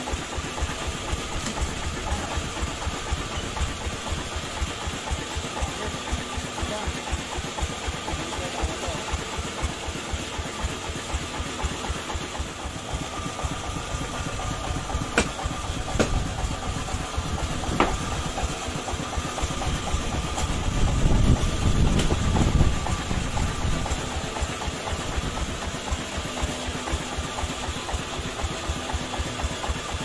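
Sawmill engine running steadily at idle, with a few sharp knocks near the middle and a louder low rumble swelling up about two-thirds of the way through.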